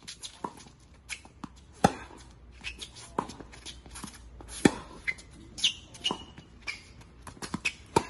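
Tennis racket striking balls on a hard court: sharp hits, the loudest about two seconds in and just before five seconds. Between them come smaller knocks of footwork and brief squeaks of court shoes.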